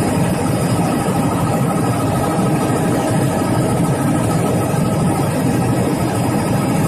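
Helicopter engine and rotor noise heard inside the cabin in flight: a loud, steady drone.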